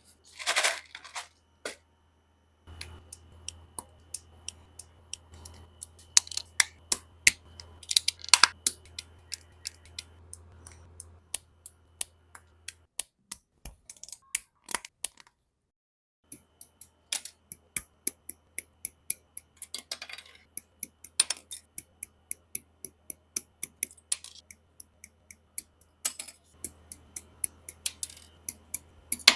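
Plastic parts of an MG Freedom 2.0 Gundam model kit being handled and fitted together: a steady run of sharp clicks and snaps, with a few longer, crisper scrapes among them.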